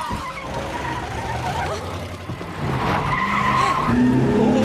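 Car skidding with its tyres squealing, with a wavering shriek that grows stronger toward the end.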